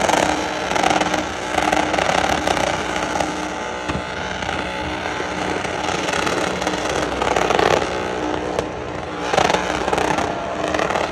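Chevy truck doing a burnout: engine held at high revs with its tyres spinning on the pavement. The engine note surges louder several times, most strongly near the start and at about 7 and 9 seconds in.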